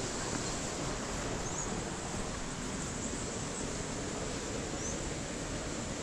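Steady rush of a waterfall, an even, unbroken noise, with two faint high chirps about a second and a half in and again near the end.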